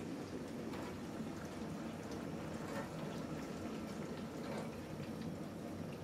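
Beko DSFN 6631 dishwasher running an empty first wash on program 1: water spraying and sloshing inside the closed tub, a steady wash sound with a few faint splashes.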